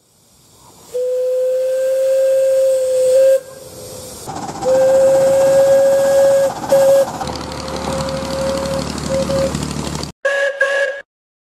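Hooter whistle of miniature railway locomotive no. 1001 'The Monarch' giving a series of steady single-note hoots: two long blasts, a short one, a fainter long one over hissing and low rumble, then two quick toots near the end.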